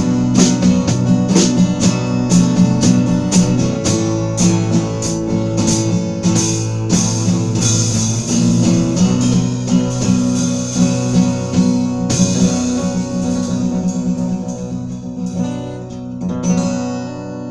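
Instrumental outro of a band song: strummed acoustic guitar chords over a steady beat of sharp percussion hits, with a crash about twelve seconds in. The playing then thins out and the last chord rings and fades away near the end.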